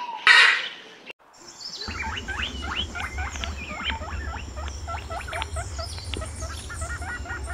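A white cockatoo gives one short, loud, harsh screech near the start. After a cut, many small birds chirp in quick short notes over a low steady rumble.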